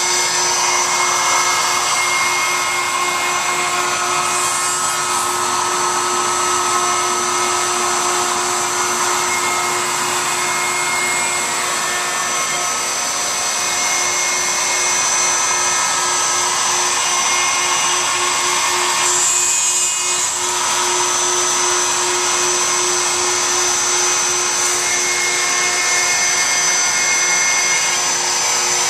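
CNC router running steadily, its spindle giving a high whine over the rushing of dust-collection suction through the brush dust shoe, as the bit mills away the waste wood from a male inlay piece. The sound shifts briefly about two-thirds of the way through.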